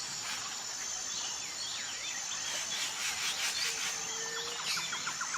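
Nature ambience of insects and birds: a steady high insect trill, with birds chirping in quick sweeping notes through the middle, and a fast pulsing call setting in near the end.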